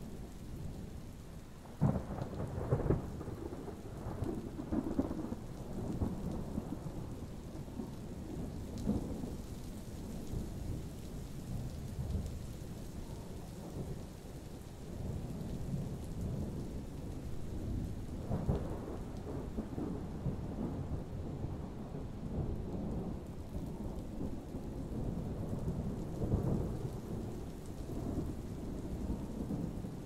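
Thunder rolling over steady rain: a sharp crack about two seconds in, then repeated rumbles, with another strong peal a little past halfway and one more near the end.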